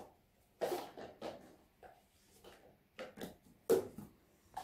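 Plastic party cups tapping and clacking as they are set onto a stacked cup pyramid, one after another: a string of light, irregular taps, the loudest a little before the end.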